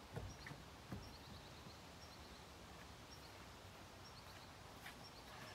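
Near silence: faint outdoor ambience with small birds chirping in short, quick trills several times, and a couple of faint thuds in the first second.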